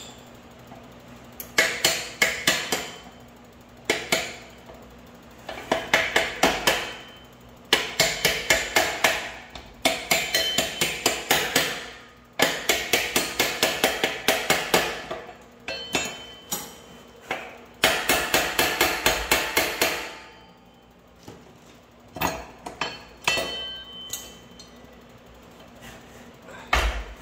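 Ratchet wrench clicking in runs of rapid, evenly spaced clicks a second or two long, with short pauses between strokes, as it turns the bolts holding the rear sprocket to a mini bike's wheel hub.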